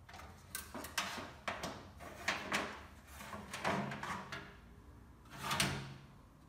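Metal-cased power supply units and cables being shifted around inside a steel server cabinet: a series of knocks, clunks and scraping rustles, the loudest near the end.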